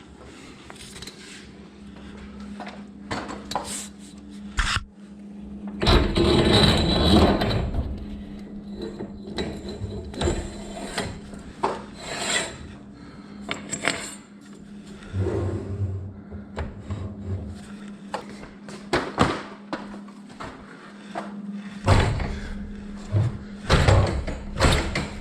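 Hand tools and hardware being worked during garage door spring replacement: irregular knocks, clicks and scraping, with a longer spell of scraping about six seconds in and a cluster of knocks near the end, over a steady low hum.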